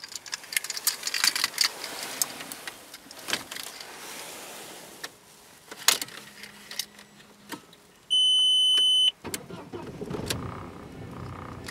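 Volkswagen Passat B5 engine being started from inside the cabin. First come clicks and rustling from the gear lever and ignition key. About eight seconds in there is a loud, steady electronic beep lasting about a second, then the engine catches just after and settles into a steady idle, which is how it "starts like a champ".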